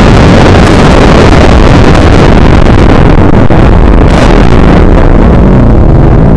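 Loud, steady rush of wind over the camera microphone of a moving motorcycle, so strong that it distorts.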